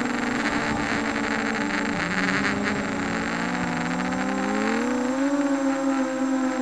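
Motors and propellers of a 250-size FPV racing quadcopter whining steadily, heard from the onboard camera. The pitch sags about two seconds in and climbs back near five seconds as the throttle is eased and then opened again.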